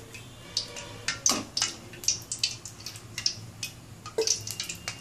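Cooking oil heating in a kadai on a gas stove, crackling and spitting with irregular sharp pops, several a second, over a low steady hum.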